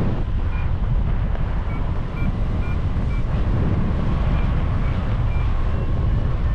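Wind buffeting the microphone: a loud, steady, gusting rumble.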